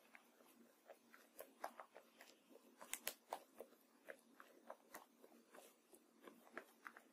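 Faint, irregular crackling and soft clicks as a silicone spatula stirs and spreads white foam in a glass baking dish, the foam squishing and popping under it. The sharpest clicks come around three seconds in.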